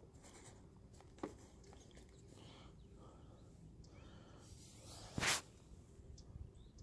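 Faint scratching and rustling from hands unhooking a largemouth bass, with a sharp click about a second in and a short, loud rush of noise about five seconds in.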